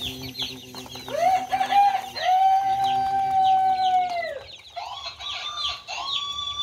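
Baby chicks peeping constantly in short high cheeps, while a rooster crows twice, each crow long and drawn out with a falling end, the first about a second in and the second about five seconds in.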